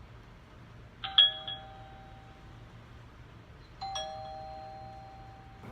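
Electronic doorbell chime ringing twice: a bright, loud strike about a second in whose two tones linger and fade, then a quieter ring near the end that holds on.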